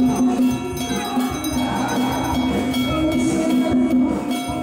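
Traditional Taiwanese Taoist ritual music, with a held steady tone over ringing metal percussion and bells.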